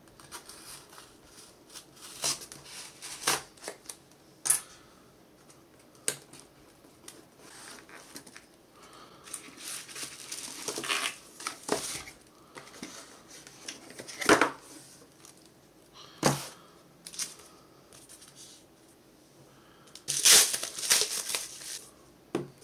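Packing being opened by hand: tape peeled from a cardboard shipping box, cardboard handled, and a bubble-wrap sleeve crinkled and torn off a boxed phone case. Irregular rustles, tears and knocks, the loudest about 14 seconds in and again around 20 seconds in.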